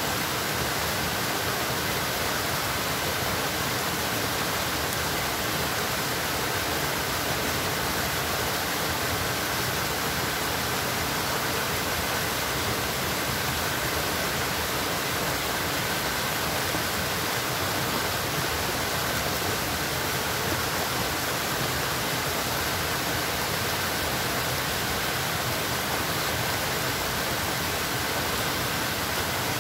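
Steady rushing of flowing water, an even hiss that holds one level throughout with no breaks or distinct events.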